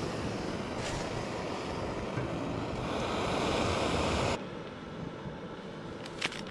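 Small gas-canister camp stove burner hissing steadily under a steel pot. It grows a little louder, then drops abruptly to a quieter hiss about four seconds in. A couple of light clicks come near the end.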